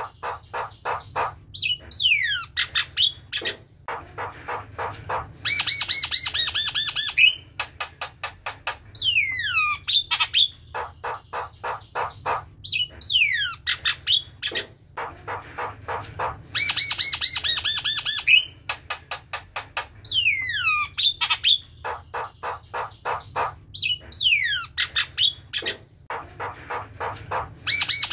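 Javan myna chattering and singing: falling whistles, fast rattling runs of clicks and rapid high trills. The same sequence comes round again about every eight seconds.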